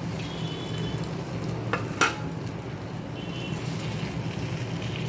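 Lentil batter sizzling in hot oil in a four-hole appam pan, with two sharp metal clicks of a knife against the pan about two seconds in.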